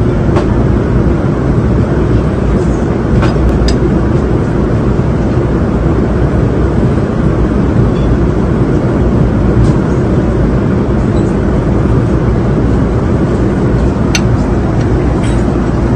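Jet airliner cabin noise in flight: a steady, low, even drone, with a few faint clicks of tableware.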